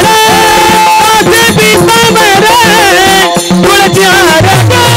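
Male lead singer of a Marathi varkari kirtan singing a devotional panchapadi, holding a long note and then ornamenting with quick turns, backed by hand cymbals. Pakhawaj drum strokes come in as a steady low beat near the end.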